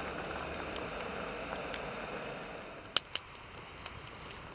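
Steady noise of wind and surf on the beach. About three seconds in, two sharp clicks come in quick succession, followed by a few fainter ones.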